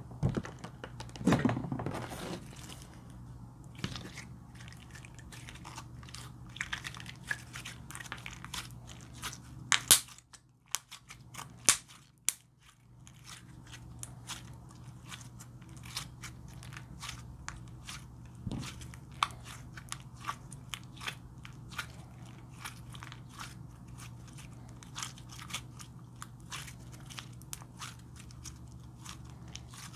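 Purple slime being pressed, stretched and squeezed by hand: a dense, irregular run of small crackling pops and squelches as air pockets in the slime burst.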